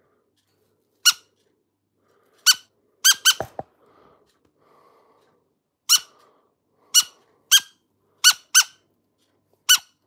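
A parrot gives about ten short, sharp squawks, each a quick high screech, coming singly and in quick pairs.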